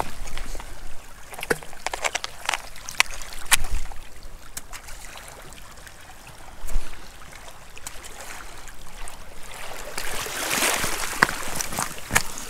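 Scallop and cockle shells clacking and knocking together as they are handled and put into a plastic bucket, with a spell of water sloshing and splashing about ten seconds in.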